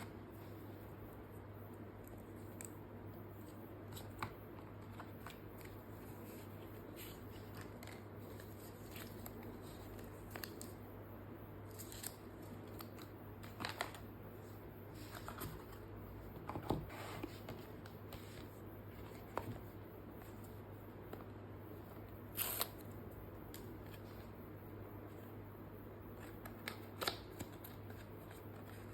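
Scattered, faint clicks and rustles of an iPhone box and its packaging being handled, over a steady low hum.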